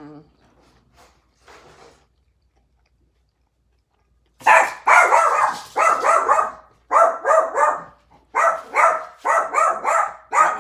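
A puppy barking loudly in rapid volleys, about two or three barks a second, starting about four seconds in. The puppy is losing his mind at someone arriving outside the house.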